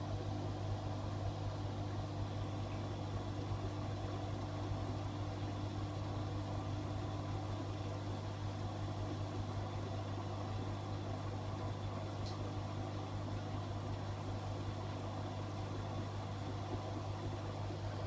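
AEG Öko-Lavamat 88840 front-loading washing machine filling with water for its rinse: a steady low hum with the even rush of water pouring into the drum.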